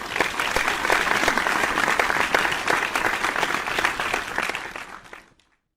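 Crowd applause, many hands clapping, swelling in and fading out about five seconds in.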